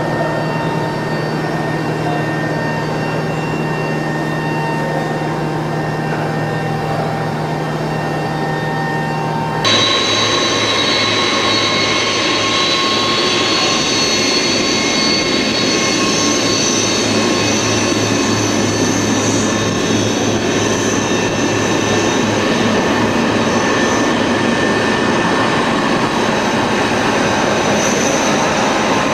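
Twin-turboprop ATR airliner's engine running on the ground, a steady hum with a fixed whine. Then, after an abrupt cut about ten seconds in, a Boeing 747 taxiing, its jet engines giving a louder steady high-pitched whine.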